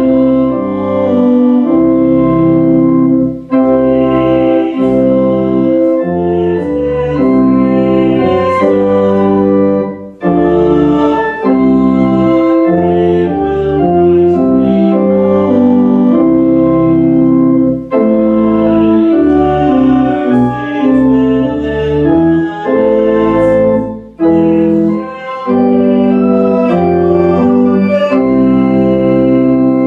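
Church organ playing a hymn tune in sustained chords, phrase by phrase, with short breaks between phrases.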